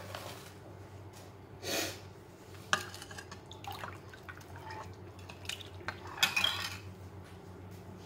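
Metal ladle stirring spiced water in a glass bowl, clinking against the glass several times with the liquid swishing.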